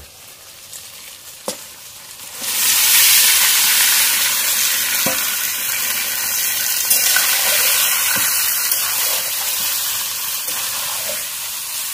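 Raw chicken pieces going into hot mustard oil and fried spice paste in a steel kadai. They burst into a loud sizzle about two and a half seconds in, which fades slowly, while a metal spatula stirs with occasional knocks against the pan.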